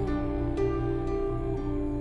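Slow, sad music with long held notes that change pitch twice.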